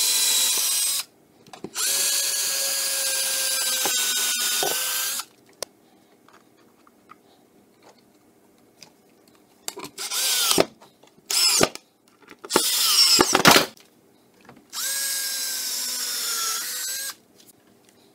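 Cordless drill running in bursts into an oak guide. It runs steadily twice, drilling pilot holes, then after a pause gives three short bursts that rise and fall in pitch as screws are driven, and a last steady run of about two seconds near the end.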